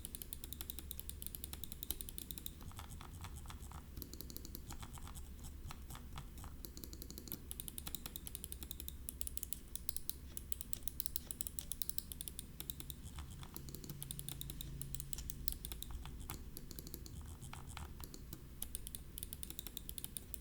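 Fast, irregular clicking and tapping of gaming peripheral switches, like typing on a keyboard.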